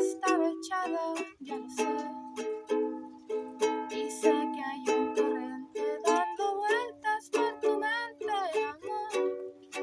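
Ukulele strummed in a steady rhythm, with a voice singing a sliding melody line over it.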